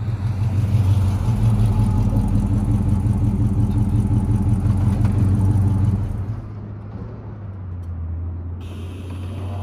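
Chevrolet LS1 V8 in a 1967 Chevelle running at idle, its exhaust rumbling steadily. About six seconds in it drops quieter and settles to a smoother, lower idle.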